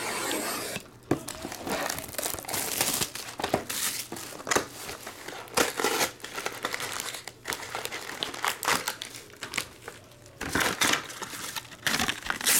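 Plastic shrink-wrap on a trading-card hobby box being slit with a utility knife: a short rasp at the start. Then irregular crinkling of cellophane and foil packs, with sharp taps of cardboard, as the box is opened and the packs are pulled out and stacked.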